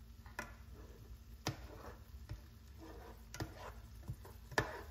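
Black plastic slotted spoon knocking and scraping against a stainless steel frying pan while green beans are stirred: about six sharp, irregular clicks.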